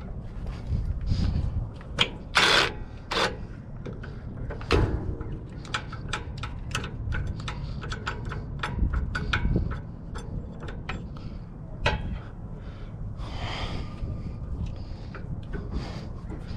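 Irregular metallic clicks, knocks and clanks of hand tools at work on the truck's battery straps and cables, with a few short louder bursts.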